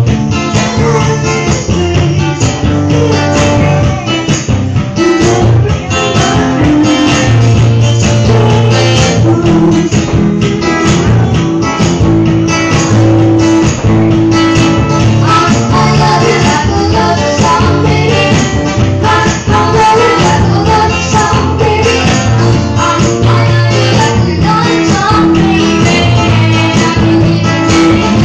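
Live acoustic music: an acoustic guitar strummed to a steady beat, with a man singing into a microphone.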